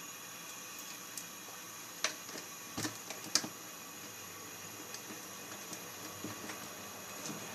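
Cooking oil heating in a frying pan on a gas burner: a faint steady hiss with scattered light ticks. A few sharper clicks and a knock come between about two and three and a half seconds in.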